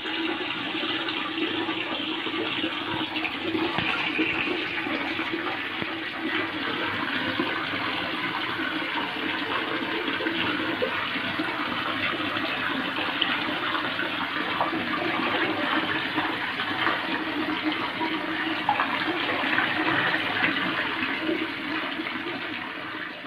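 Steady bubbling and rushing of aquarium water from an air-stone bubble stream, dipping slightly near the end.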